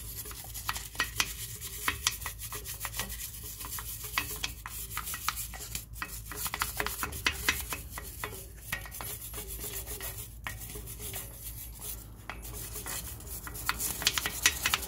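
Brass wire brush scrubbing a front brake caliper wet with foaming degreaser: rapid back-and-forth scratchy strokes, quickening near the end.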